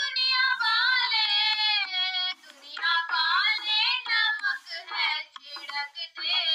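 A high-pitched voice singing a Hindi devotional bhajan, a gliding melody in phrases with short breaks between them.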